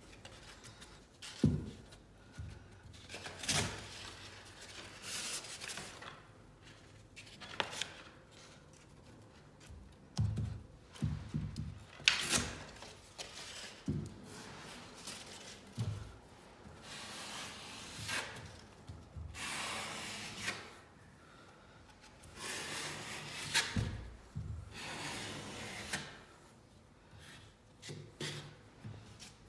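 Drywall knife scraping and spreading setting-type joint compound over paper tape on a drywall patch, in irregular strokes with a few sharp knocks.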